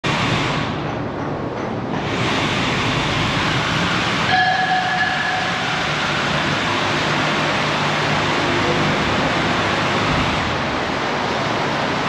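Steady noise of machinery running, with a brief high whine about four seconds in.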